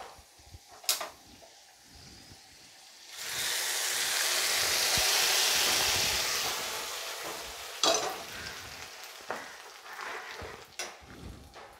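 Hot ghee and fried cashews poured into semiya payasam in a brass uruli, hissing loudly as they hit the hot milk about three seconds in, then fading away over a few seconds. A sharp knock comes about a second in and another about eight seconds in, followed by stirring.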